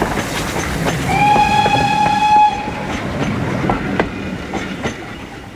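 Steam train running, with rail clatter and scattered clicks of wheels over rail joints, and one steady whistle blast of about a second and a half starting about a second in. The running noise eases off after the whistle.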